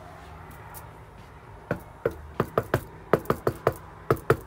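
Knuckles knocking rapidly on a house door: about a dozen sharp raps in quick, uneven bursts, starting about a second and a half in.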